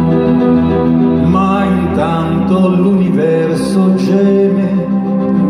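Live song: a male voice sings a slow, wavering melody over sustained keyboard chords, the voice coming in about a second in.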